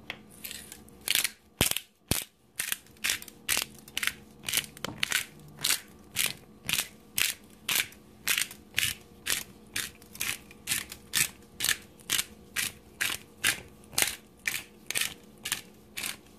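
Pepper grinder grinding black peppercorns over raw chicken: an even run of short crunching grinds, about two a second.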